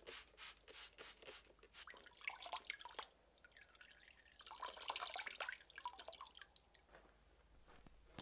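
A hand spray bottle squirted over a steel knife blade in a quick series of bursts, followed by dripping. About four seconds in, water is poured from a steel cup over the blade, splashing and running off, then dripping into the basin below.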